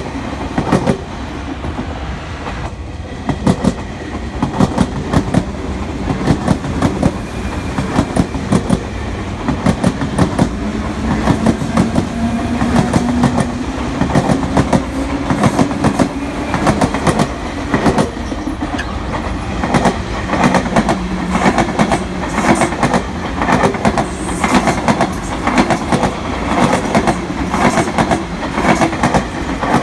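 Electric commuter train wheels clattering over rail joints, a steady run of quick grouped clicks as each bogie crosses the joint, with a low humming tone rising and holding underneath in the middle.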